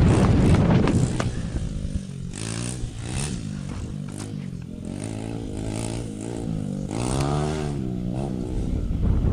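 Honda XR100 dirt bike's single-cylinder engine being ridden, revving up and down repeatedly as the throttle opens and closes. It is loudest in the first two seconds, and one strong rev rises and falls about seven seconds in.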